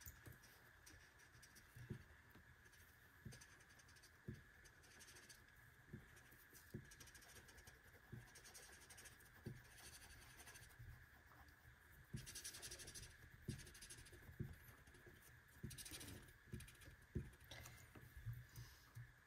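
Faint scratching of a marker or colored pencil coloring on paper, in short irregular strokes, with scattered soft knocks and a faint steady high-pitched whine underneath.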